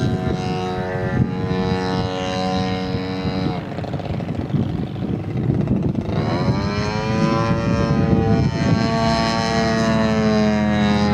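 Engine and propeller of a Katana aerobatic radio-controlled model plane in flight, running steadily at high power. About three and a half seconds in it is throttled back. About six seconds in it opens up again with a rising pitch and holds steady.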